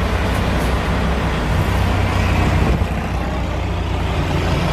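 Large diesel engine running steadily close by: a low, even drone with a wash of mechanical noise over it.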